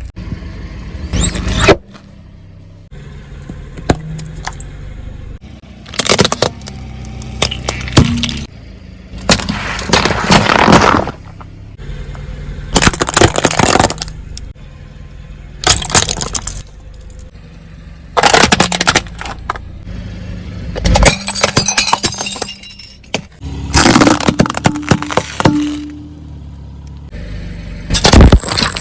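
Objects cracking and crunching under a car's tyres as it rolls over them: a series of about eight loud crunching bursts a few seconds apart, some a second or two long.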